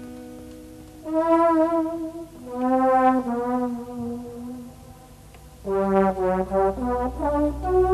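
Live band's brass section playing a melody in two long, wavering phrases, after a strummed acoustic guitar chord rings out. A pause follows, then, a little before 6 s in, a louder run of short notes with bass coming in underneath.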